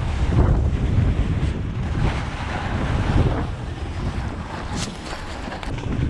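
Wind buffeting a GoPro's microphone while riding a snowboard, a steady low rumble with hissing swells of the board sliding and scraping over packed snow.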